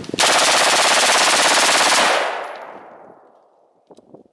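Smith & Wesson AR rifle fired fully automatic in one continuous burst of about two seconds, its echo dying away over the next second or so.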